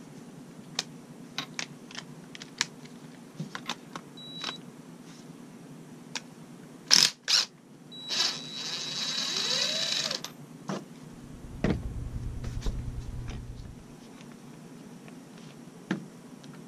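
Cordless impact driver undoing the 19 mm bolt at the bottom of a motorcycle fork leg. Scattered clicks of tool handling come first, then two sharp loud clicks about seven seconds in. About two seconds of motor whirring with a high whine follow, then about two seconds of rapid low rattling hammering as the bolt is driven out.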